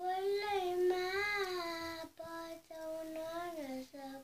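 A young girl singing unaccompanied, holding long drawn-out notes: one of about two seconds, then shorter held notes after brief breaths, the last ones dipping down in pitch.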